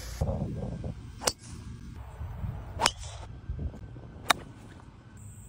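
Golf club striking a golf ball three times, sharp clicks about a second and a half apart, the last one the loudest.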